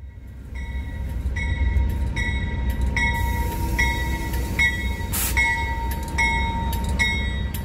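Train sound: a deep steady rumble with a short ringing ping repeating a little more than once a second, and a brief hiss about five seconds in.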